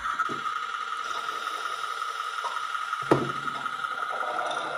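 Onboard sound system of a large-scale radio-controlled model locomotive playing locomotive sounds through its small speaker: a steady high tone over a hiss, with a sharp clank about three seconds in followed by a low hum.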